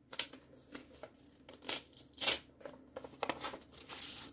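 Paper rustling as a card envelope is opened and the card pulled out: a run of short crinkles and scrapes, with a longer sliding rustle near the end.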